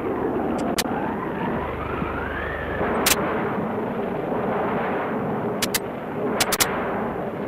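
Film storm sound effect: wind howling in wavering rising and falling glides over a steady rush of rain, broken by a few sharp cracks, the loudest about three seconds in.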